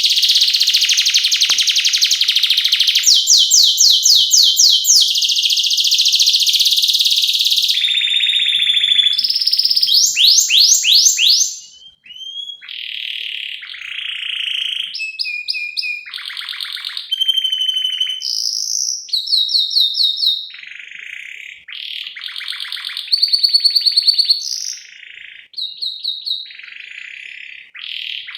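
Domestic canary singing: a long, loud roll of rapidly repeated notes, then, about twelve seconds in, quieter varied phrases of trills and chirps with short pauses between them.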